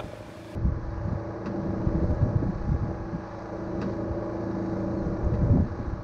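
Portable generator running steadily, a constant engine hum, with wind buffeting the microphone.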